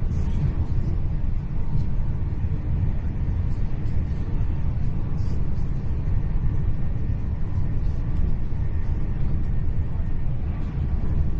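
Steady low rumble inside the passenger cabin of a Hitachi Class 800 Intercity Express Train running along the line: wheels on rail and running gear, even and unbroken.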